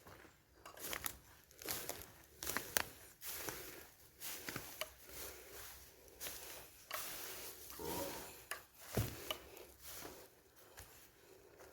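Irregular footsteps crunching and scuffing over a floor, with small cracks and rustles underfoot.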